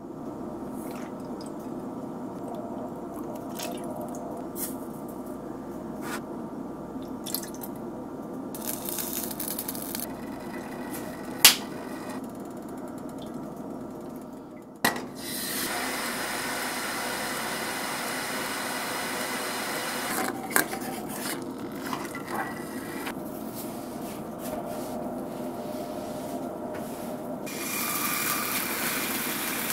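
Kitchen cooking sounds: liquid poured and dripping from bottles into a measuring spoon and a steel bowl, with utensils clicking and clinking. A dressing is then stirred in a small saucepan on the stove. Near the end a hiss rises as raw chicken goes into an oiled frying pan.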